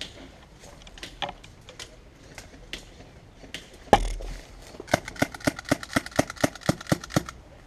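A single shot from a Tokyo Marui L96 AWS spring-powered bolt-action airsoft sniper rifle about four seconds in: a sharp crack with a short low thud. About a second later comes an even run of about a dozen clicks, roughly five a second.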